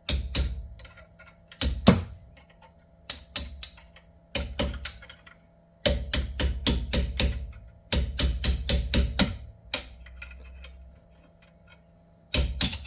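Hammer strikes on a pin punch, driving the brake pad retaining pins out of a Mercedes W221 S600 front brake caliper. Sharp metallic taps come in several runs of quick blows, a few a second, with pauses between runs and a last short pair near the end.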